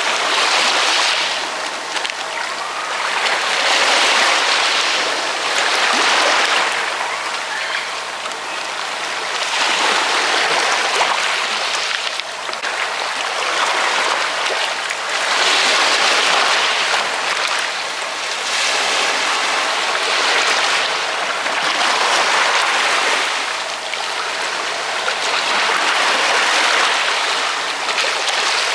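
Ocean waves washing onto a shore, a steady hiss of surf that swells and ebbs every two to three seconds.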